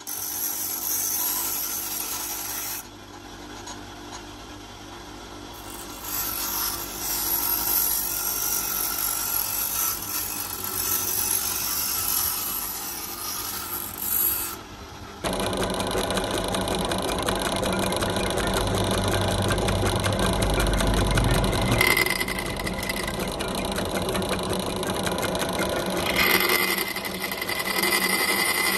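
Bench grinder wheel grinding the teeth of a steel saw blade in bursts, with a harsh high-pitched scraping and a short lull after a few seconds. About fifteen seconds in it gives way to a drill press running, its bit boring through the steel blade with a high steady whine at times.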